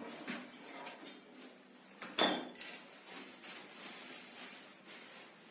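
Light metallic clinks and one sharper knock about two seconds in, from stainless steel kitchen basket hardware being handled during fitting.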